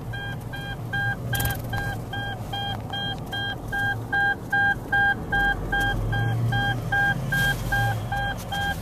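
A vehicle's electronic warning chime beeping steadily and rapidly, about three short beeps a second, over the low hum of the moving vehicle.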